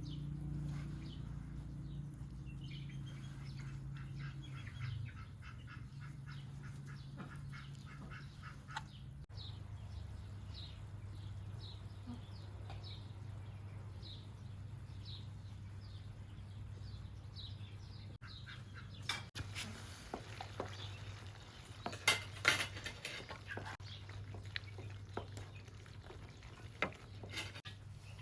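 Farm poultry and birds calling: a quick run of repeated calls, then short descending chirps about once a second. Sharp clinks of dishes or utensils come in the last third.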